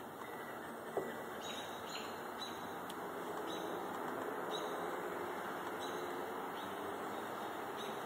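Birds chirping, short high calls repeating about once or twice a second over a steady background hiss. A single sharp click about a second in.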